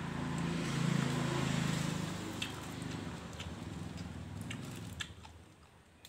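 A motor vehicle passing by: a low engine hum with road hiss swells about a second in, then fades away over the next few seconds. A few faint clicks sound as it dies away.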